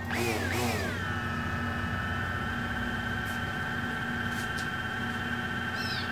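DJI Phantom 3 quadcopter's motors starting up and spinning at idle before lift-off: a whine that rises and wavers in pitch for about the first second, then holds steady.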